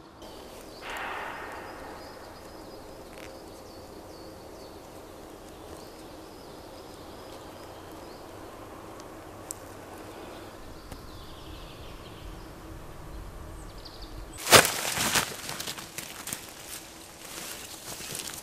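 Quiet forest background with a faint steady hum, then about fourteen seconds in a sharp crack followed by a run of crackling and rustling from twigs and gear on the forest floor.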